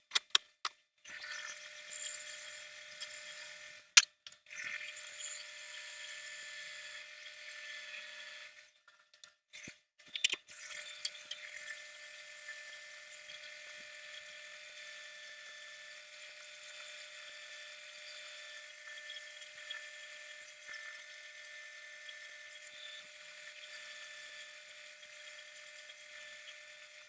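A power tool running steadily and fairly quietly with a high whine. It cuts out abruptly about a second in and again for over a second around nine seconds in, with a few sharp clicks.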